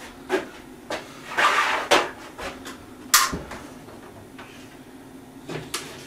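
Wooden knocks and clunks as a framing ladder of two-by-fours is handled and lifted overhead, with a brief swish of the lumber moving about a second and a half in. The loudest, sharpest knock comes a little after three seconds in.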